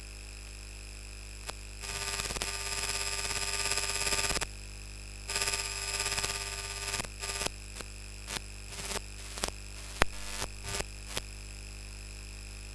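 Marker drawing on a whiteboard: a long scratching stroke about two seconds in and another about five seconds in, then short strokes and taps, over a steady electrical hum.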